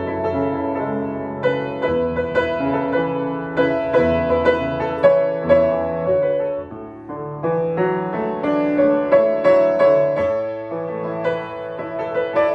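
Piano playing struck notes over held chords, easing off briefly about halfway through.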